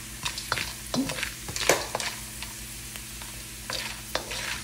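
Gond (edible gum) pieces sizzling as they fry in hot ghee in a wok, stirred with a wooden spatula that gives scattered clicks and knocks against the pan. The gum has puffed up, the sign that it is fried through.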